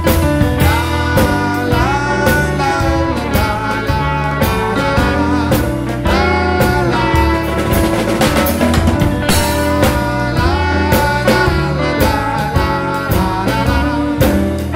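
A live band playing: acoustic guitar over a drum kit keeping a steady beat, with keyboards supplying the bass line.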